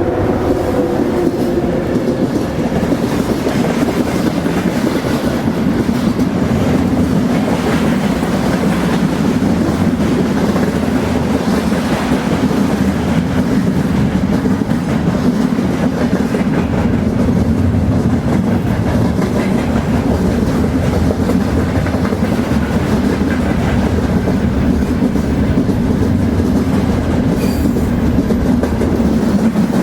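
Train rolling along the track: a steady, loud rumble of wheels on rail with a continuous clickety-clack. A few faint steady tones fade out in the first second or two.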